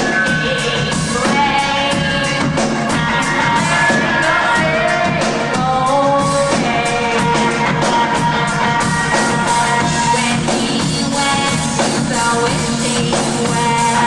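Live rock band playing: electric guitar and drum kit under a woman's sung vocal, recorded from the audience with a dull, band-limited sound.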